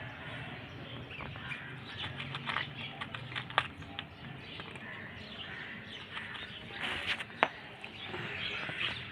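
Cat crunching dry kibble from a foil dish: a run of small, irregular crunches and clicks, with two sharper clicks about three and a half and seven and a half seconds in.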